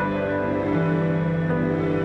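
Slow, soft background music of sustained string-like notes.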